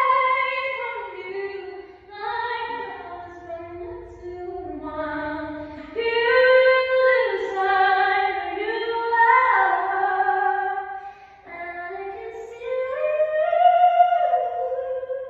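A woman singing solo with no accompaniment: a slow melody of long held notes that glide smoothly up and down between pitches, with short breaths between phrases.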